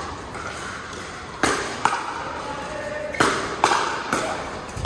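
Pickleball rally: paddles hit the hard plastic ball in a quick exchange, about five sharp pops with a short ring after each, echoing in a large hall.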